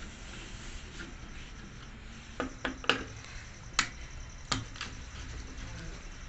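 About six sharp clicks and light knocks of hard objects, in a loose cluster through the middle, over a steady low background hum.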